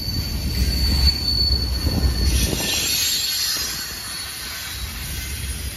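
Double-stack container train rolling past: low rumble of the well cars with a thin, steady high wheel squeal. A brighter squeal rises about two seconds in, and the rumble eases a little near the end.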